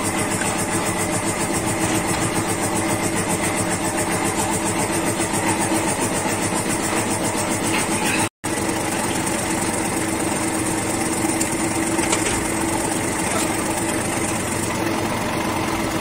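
A motor running steadily with an even hum, briefly cut off a little past eight seconds in.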